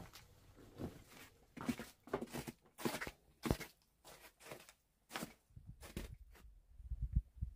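Footsteps: irregular crunching steps, about one to two a second, with some low thumps near the end.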